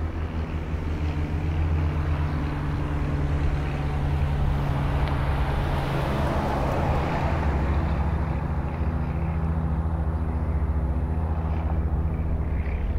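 A vehicle engine idling with a steady low hum. Around the middle, a broader whooshing noise swells and fades, as of a car passing on the road.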